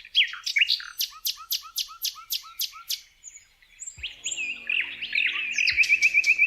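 Songbirds singing: a run of about nine sharp, evenly repeated notes over the first three seconds, then after a short pause different calls ending in a fast trill. A faint low hum comes in about four seconds in.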